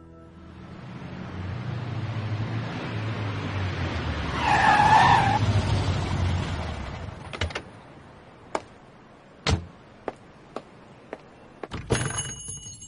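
A motor vehicle drives up and stops, its rumble growing and fading, with a brief wavering brake squeal about five seconds in. A few scattered light clicks follow, then a shop-door bell rings near the end.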